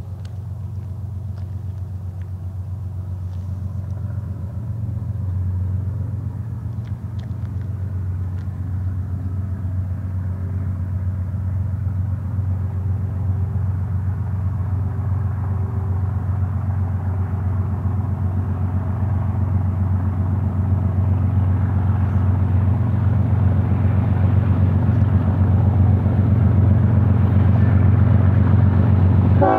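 GE ES44C4 diesel-electric locomotives leading a double-stack container train, approaching under power: a steady low engine drone that grows gradually louder as the train nears.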